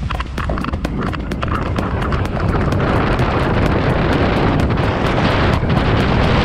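Wind buffeting the action camera's microphone as a speedflying pilot runs down the slope under his wing into takeoff: a heavy rushing noise that grows louder about three seconds in.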